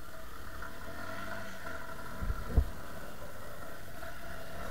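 Yamaha Serow 250's air-cooled single-cylinder engine running steadily at low speed as the bike rides along a paved road. A brief low thump about halfway through.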